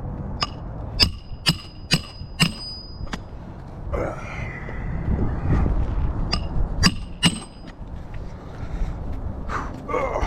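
Hammer driving roofing nails into shingles: a run of about six sharp, ringing metallic strikes roughly half a second apart, then three more a few seconds later, with a brief scrape between them.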